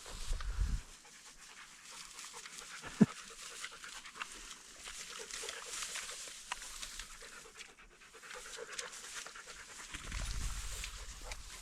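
Hunting dog panting rapidly, with one sharp click about three seconds in.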